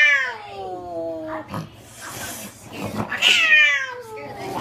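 Domestic cat yowling in long drawn-out calls that slide down in pitch: one trails off about a second and a half in, a second call rises and falls from about three seconds in, and a third begins right at the end.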